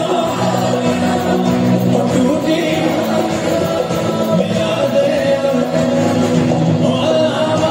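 Live band music with a male lead singer on a microphone, singing long held notes over the band.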